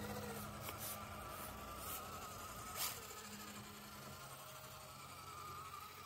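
Axial SCX24 micro crawler's tiny electric motor and gears whining as it crawls over rocks: a steady high buzz that wavers slightly with throttle, with a few sharp clicks, the loudest about three seconds in.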